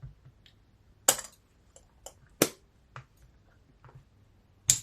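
Three sharp clicks, about a second in, near the middle and near the end, with a few fainter ticks between: handling of a Pentax K1000 35mm film camera.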